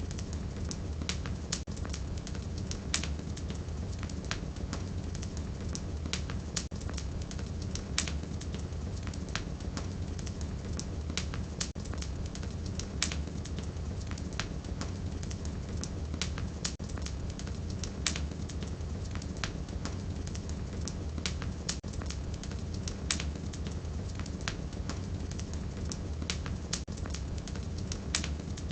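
Wood fire burning in a fireplace: a steady low rumble of flame with frequent sharp, irregular crackles and pops of burning firewood.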